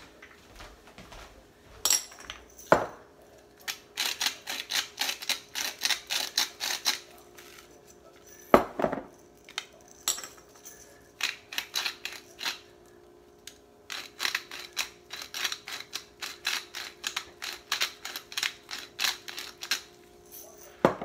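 Hand-twisted pepper and salt grinders cranked over a bowl of vegetables: runs of quick crunching clicks, about four a second, as the peppercorns and salt crystals are ground. A few louder knocks come between the runs.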